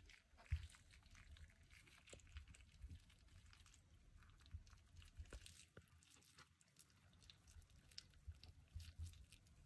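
Faint handling noises of hands rolling up a thin slice of raw beef with prosciutto and cheese on a wooden cutting board: soft, moist squishes and small irregular clicks and taps, with one slightly louder knock about half a second in.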